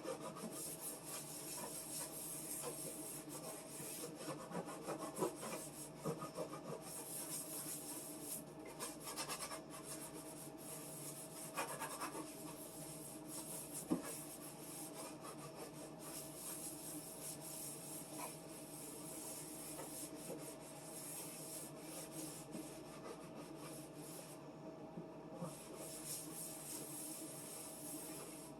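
A cloth scrubbing and wiping the inside bottom of a refrigerator, a continuous rubbing with a few light knocks.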